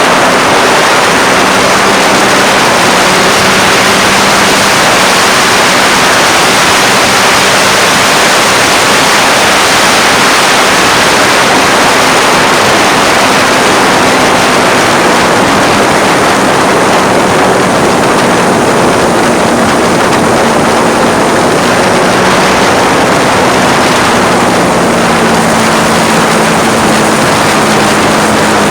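Loud, steady wind rush over a phone microphone on a moving motorcycle, almost drowning the 2010 Triumph Street Triple's three-cylinder engine, whose note shows faintly underneath and changes pitch a few times.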